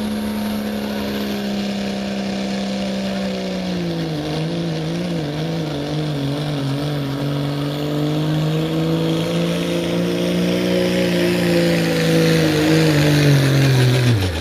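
Dodge Ram pickup's Cummins inline-six diesel running at high revs under full load, pulling a weight-transfer sled. Its pitch drops and wavers about four seconds in as it takes the load, holds while growing louder, then falls away sharply at the very end.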